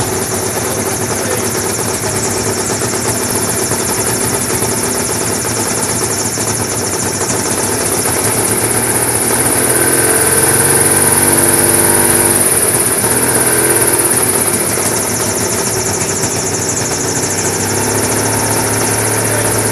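Cricket gyrocopter's engine and pusher propeller running steadily, the note shifting and growing a little louder about halfway through before settling again.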